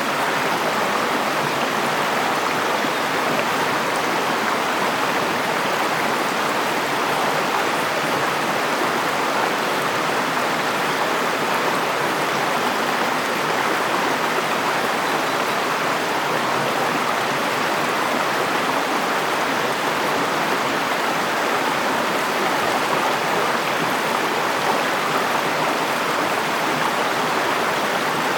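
River water flowing over rocks, a steady close rushing with no breaks.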